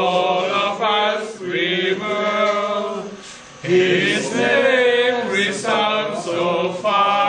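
A small group of men singing together unaccompanied, in long held notes, with a short break for breath about three and a half seconds in.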